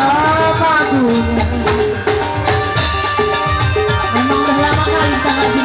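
Live Malay (Melayu) band music: a singer carries a bending melody over a steady drum and percussion rhythm.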